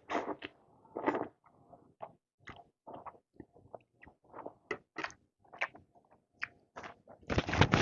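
Close-miked eating of spicy noodle soup: irregular short chewing and mouth sounds, with a louder, denser burst of noise near the end.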